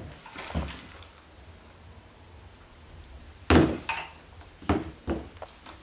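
Tassel loafers tapping and scuffing on a hard floor as the wearer shifts his feet: a few separate knocks, the loudest about three and a half seconds in, with a couple of lighter ones near the end.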